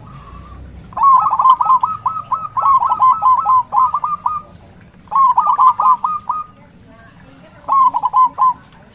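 Zebra dove (perkutut) cooing loudly in rapid runs of short, falling staccato notes. It gives a long phrase of about three and a half seconds, a shorter one a little after, and a brief one near the end.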